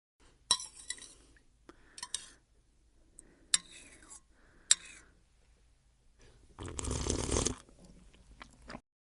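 Crunchy food being bitten and chewed: several sharp crunches spread through the clip, then a longer, louder crunch about seven seconds in.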